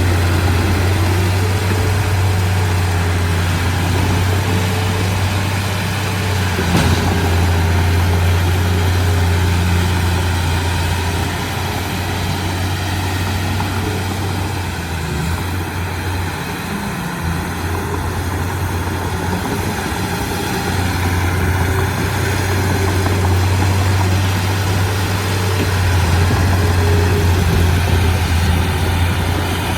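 Diesel engine of a Komatsu D31P crawler bulldozer running steadily with a strong low hum, easing off somewhat in the middle and building again near the end. A single brief knock sounds about seven seconds in.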